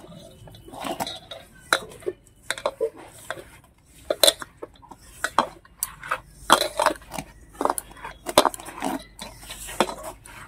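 A hand mixing flour and fresh chhena in a stainless steel bowl: irregular scrapes and knocks of fingers against the metal bowl.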